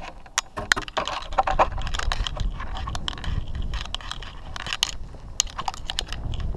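Camera-on-board sound from a radio-controlled touring car: knocks and rubbing as a hand handles the car body, then the car driving over rough asphalt, with irregular clicks and rattles and a crunchy road noise and no clear engine note.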